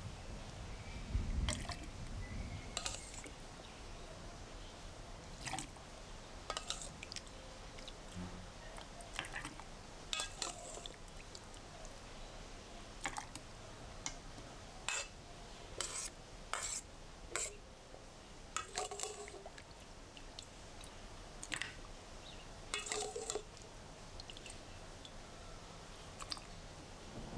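Scattered small drips of pickling brine and light clinks around a glass jar, single sharp ticks at irregular intervals with quiet gaps between them.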